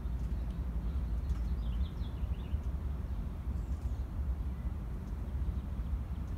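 A steady low rumble, with a bird chirping a few quick notes about two seconds in.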